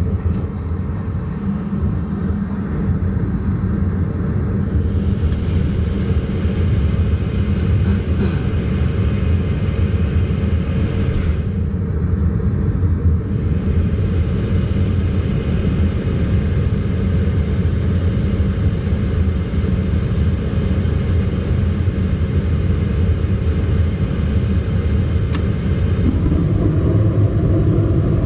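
Gas furnace's draft inducer motor running with a steady rumble during the ignition sequence, before the burners light.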